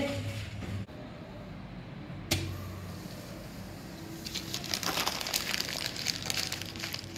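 A sheet of paper crumpled into a ball by hand: dense crackling from about four seconds in, lasting nearly three seconds. A single sharp knock comes a little over two seconds in.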